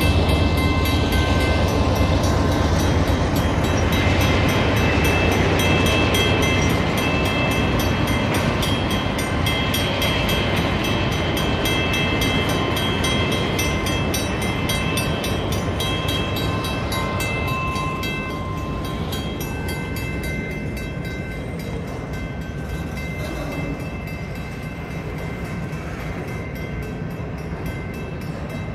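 CN freight train rolling past, its cars and wheels rumbling steadily on the rails with on-and-off high-pitched squeals. The sound gradually fades in the last third.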